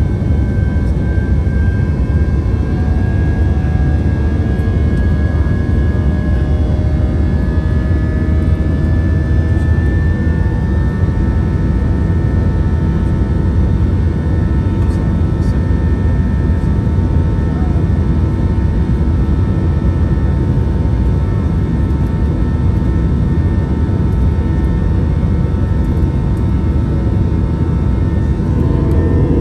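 Airliner cabin noise: a steady, loud low rumble of the engines and rushing air, with faint whining engine tones that rise slightly in pitch over the first ten seconds or so.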